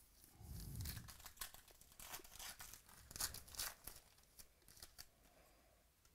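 Foil wrapper of a baseball trading card pack being torn open and crinkled by hand: a run of sharp crackles that starts just after the beginning and dies away about five seconds in.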